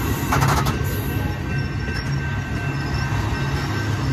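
Amtrak Superliner bilevel passenger cars rolling past at close range, a steady rumble of wheels on rail. A quick cluster of wheel clicks comes about half a second in, and a thin steady high tone runs over it.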